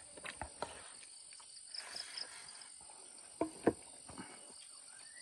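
Insects chirping steadily in a fast pulsing pattern, with a few faint clicks and two short, louder sounds about three and a half seconds in.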